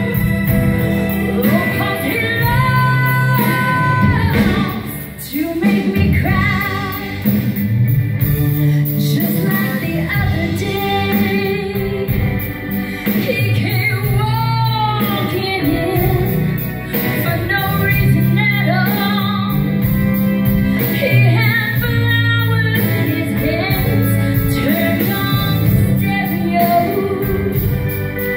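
A woman singing lead live, holding notes with a wavering vibrato, backed by a band of electric and acoustic guitars, keyboards and drums.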